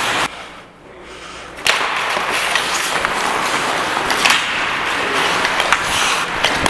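Ice hockey skates scraping and carving on rink ice, heard close up from a player's helmet camera, with a few sharp clicks. The hiss drops away for about a second and a half, then returns abruptly.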